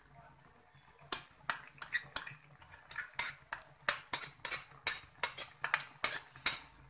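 Metal spoon clinking and scraping against a glass bowl as ginger paste is knocked out into the kadhai: a quick series of sharp clinks, two to four a second, starting about a second in.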